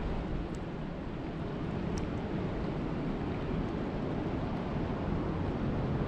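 Steady rain falling on a lake's surface: a dense, even rushing hiss with a few sharp drop ticks standing out.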